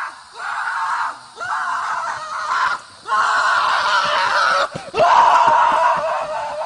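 A series of loud, drawn-out screams: about five cries, each a second or so long, with short breaks between them.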